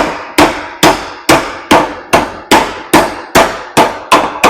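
Hand hammer striking steel in a steady rhythm, about two and a half blows a second, each blow with a short metallic ring: metal being hammered over into shape.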